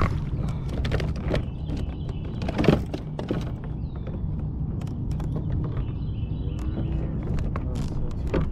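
Wind rumbling on an action-camera microphone, with scattered clicks, knocks and splashes as a bass is reeled in and swung aboard a fishing kayak; the loudest knock comes a little under three seconds in.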